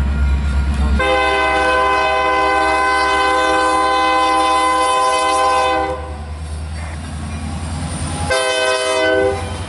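Union Pacific SD70M diesel locomotive's multi-chime air horn blowing one long blast of about five seconds, then a short blast of about a second near the end, over the low rumble of the locomotive passing.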